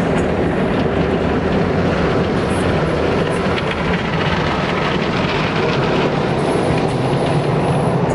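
Automatic car wash working over a car, heard from inside the cabin: a steady rush of water and soapy foam spraying and washing against the windows and body.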